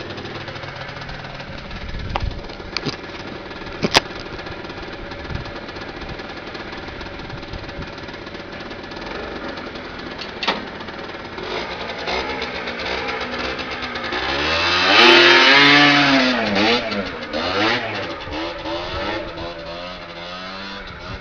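Piaggio NRG MC2 scooter's 50cc two-stroke engine idling steadily, then revved up and back down about fifteen seconds in, followed by a few shorter blips of the throttle.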